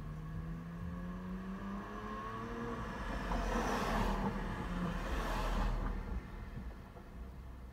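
Interior car ambience: a steady low road and engine rumble while driving, with an engine note rising in pitch over the first couple of seconds. From about three seconds in, another car overtaking close by brings a swelling whoosh of tyre and engine noise that fades just before the end.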